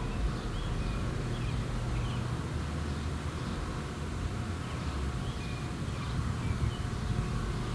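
Birds chirping over a steady low rumble of outdoor background noise.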